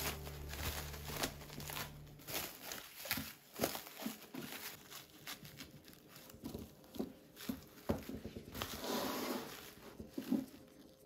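Food-preparation handling sounds: light knocks and clicks with crinkling and rustling, and a longer rustle near the end. Background music stops about two seconds in.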